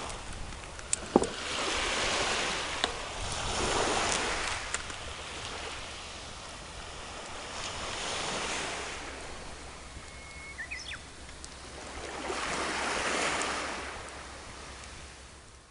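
Waves washing onto a shore, the noise swelling and ebbing in slow surges about every four to five seconds, with a sharp click about a second in; it fades out near the end.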